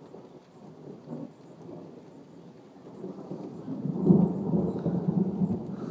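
Rolling thunder: a deep rumble that builds about three seconds in and is loudest a second later.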